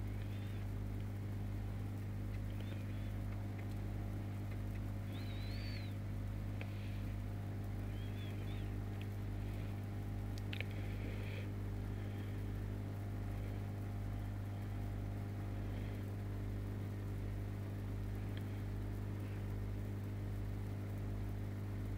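Steady electrical hum of aquarium equipment, such as a filter or air pump, with a faint low pulsing under it. A few faint short high chirps come through a few seconds in, and there is a single click near the middle.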